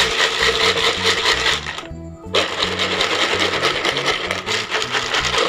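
Moistened fish-bait pellets rattling and swishing inside a plastic jar as it is shaken hard, with a short break about two seconds in. Background music plays underneath.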